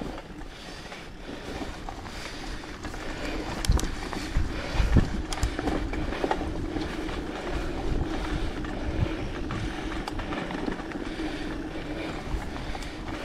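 Mountain bike ridden along a forest trail: steady rolling noise from the tyres and the bike, with wind on the microphone and a few sharp knocks from bumps about four and five seconds in.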